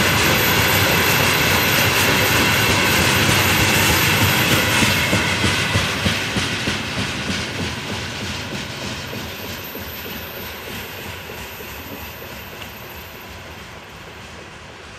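Passing train running on the rails, its wheels clicking in a rapid even rhythm over the rail joints, the sound fading steadily as the train moves away.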